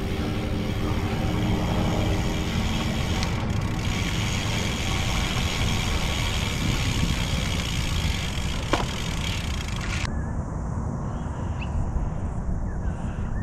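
Wind rushing over the microphone of a camera on a moving bicycle, a steady low rumble with hiss. About ten seconds in the high hiss drops away and faint bird calls come through.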